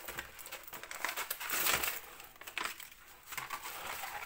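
Rustling and crinkling of a rolled diamond-painting canvas and its white paper covering being unrolled by hand, in a series of rustles that are loudest a little before halfway through.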